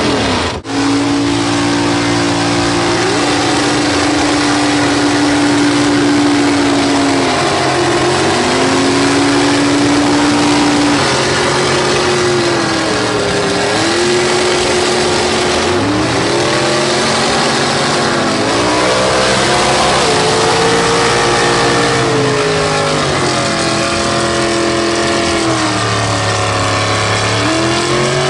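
Engines of two lifted mud trucks straining at high revs in a tug-of-war pull. The pitch holds steady for several seconds, then dips and climbs again, more often in the second half. The sound drops out briefly about half a second in.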